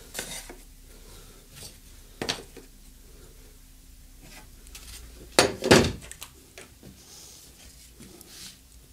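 Hands handling layout tools and small blocks on a workbench: a few light knocks and clatters as pieces are picked up and set down, the loudest a pair of knocks a little over five seconds in.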